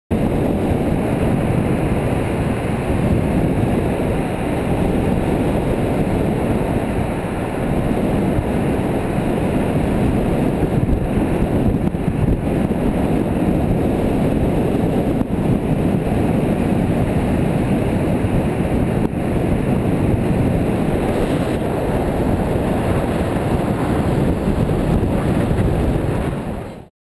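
A car driving along a road, recorded by a GoPro HD Hero2 mounted on the car's body: a loud, steady rush of wind on the microphone mixed with tyre and road noise, with no clear engine note. The sound cuts off abruptly near the end.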